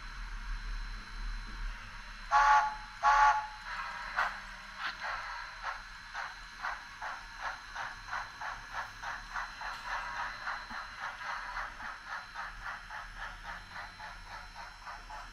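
Sound-equipped HOn3 model steam locomotive blowing two short whistle blasts, then chuffing steadily at about two beats a second as it pulls its train along.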